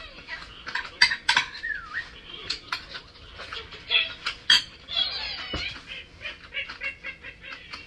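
A metal spoon clinking and scraping against a ceramic bowl while scooping rice, a dozen or so irregular sharp clicks, with close-up chewing and mouth sounds between them.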